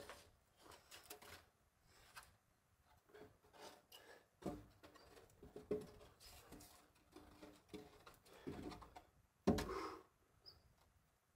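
A long wooden beam being handled and lifted upright, with scattered faint knocks and scrapes and one louder knock about nine and a half seconds in. A bird chirps briefly near the end.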